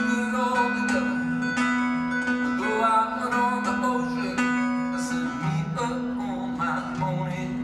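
Acoustic guitars played live in a steady plucked and strummed pattern over a repeating bass note.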